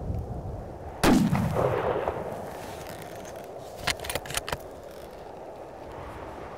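A single hunting-rifle shot, a follow-up shot at a bull moose, its report rolling off and falling away over about a second. About three seconds later comes a quick run of sharp clicks, the rifle's bolt being worked.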